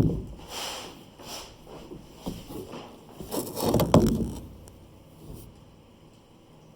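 Snap ring pliers and a steel snap ring knocking and scraping against the rear axle of a John Deere F935 mower as the ring is worked back into place. A sharp knock comes first, then a run of irregular clatters and scrapes, loudest about four seconds in, dying away after about five seconds.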